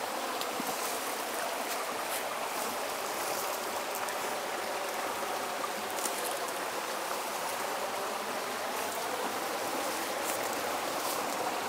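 Small Southern Appalachian mountain creek running, a steady, even rush of water.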